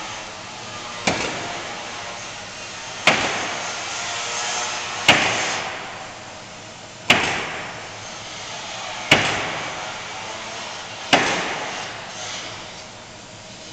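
Pneumatic nail gun on an automated gantry nailing machine driving nails into a wood sheathing panel: six sharp shots, one every two seconds, each followed by a short hiss that fades.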